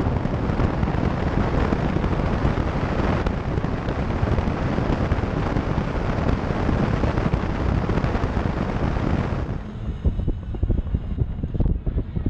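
Wind rushing over a hood-mounted camera on a moving vehicle, mixed with road and engine noise. About nine and a half seconds in, the steady rush drops to a duller, uneven buffeting as the vehicle slows onto a dirt track.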